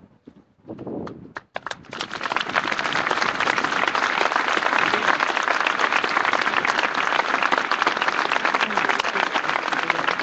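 Large crowd applauding: a few scattered claps about a second and a half in, swelling quickly into loud, dense, sustained applause.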